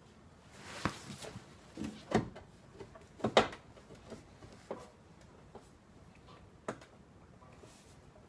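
Scattered knocks and clanks of steel body panels being handled and wrestled into position while a replacement rocker panel is fitted, a handful of separate sharp knocks with the loudest about three seconds in.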